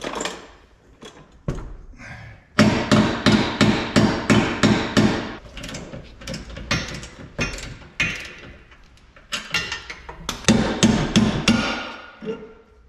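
Hammer blows on a trailer suspension bolt, knocking out an old ribbed bolt that is seated tight in its hanger. A quick run of about ten blows comes a few seconds in, then a few scattered blows, then another short run near the end.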